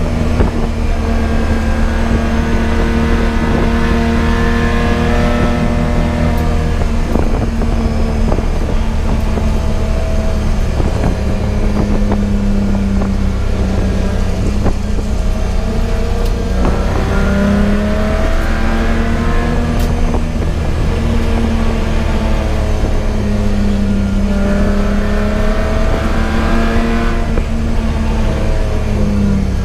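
Race car engine under hard driving, its note climbing and then dropping again several times as it goes through the gears, over a constant heavy low rumble.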